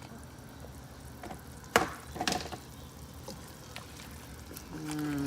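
Thai eggplants going into a pot of simmering soup: liquid sounds, with a sharp knock about two seconds in and a smaller clatter just after.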